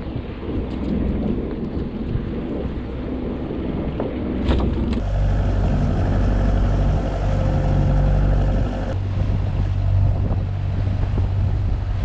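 Fishing boat's engine running, with wind on the microphone. About four and a half seconds in there is a knock, after which the engine's hum becomes louder and steadier.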